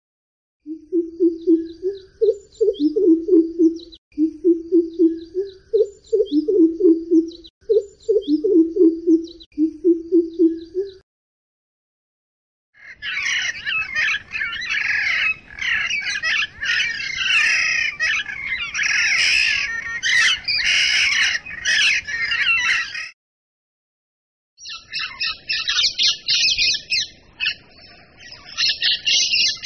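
Recordings of different backyard birds calling, one after another: first a low-pitched call repeated in short phrases for about ten seconds, then after a pause a dense, high chattering of many birds, then after another pause rapid high chirping.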